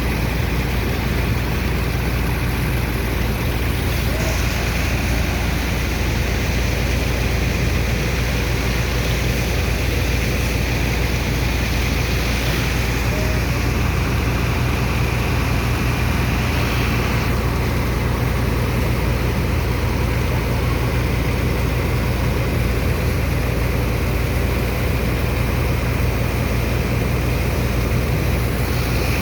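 Sand dredger's diesel engine and pump running steadily: a deep, unbroken hum with an even hiss over it.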